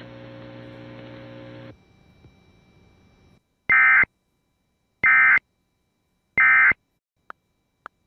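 EAS End of Message: three short, loud bursts of warbling SAME data tones about a second apart, marking the end of a severe thunderstorm warning. Before them, a low steady hum cuts off after under two seconds, and two faint clicks come near the end.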